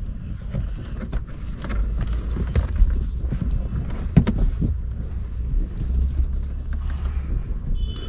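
Scattered clicks and knocks of hands working at car wiring and a plastic Scotch-lock wire connector, over a low steady rumble.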